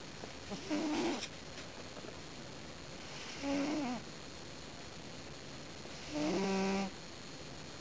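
A sleeping cat snoring: three short, pitched snores about every three seconds, the last one the longest and steadiest.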